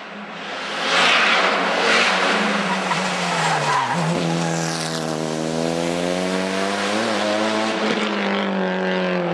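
Mitsubishi Lancer Evo II rally car's turbocharged 4G63 four-cylinder at full throttle on a hillclimb, with tyre noise as it approaches. It passes about four seconds in with a drop in pitch, then pulls away with its engine note climbing steadily and a brief change near seven seconds.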